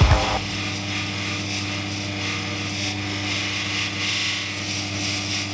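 Motor-driven sharpening wheel running with a steady hum while a wood chisel's bevel is held against it, giving a steady hissing rub as the burr is honed off the edge.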